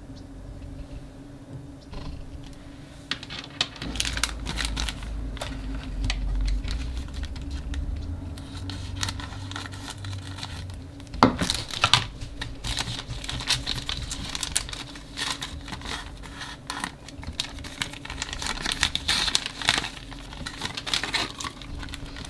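Glossy plastic packet crinkling and crackling as it is handled and opened, with a few sharper snaps about halfway through.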